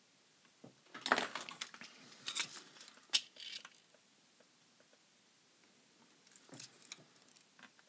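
Small clicks, taps and crackly scrapes in two bursts, about a second in and again near the end: tweezers and a soldering iron working a small electrolytic capacitor on a circuit board.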